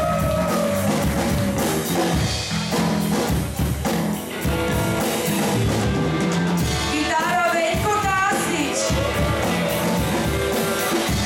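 Rock band playing live, with a drum kit keeping the beat and a singing voice over the band.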